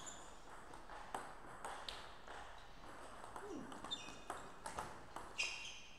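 Table tennis ball clicking sharply off rackets and table during a rally, a dozen or so knocks, several with a short hollow ping as the ball rings.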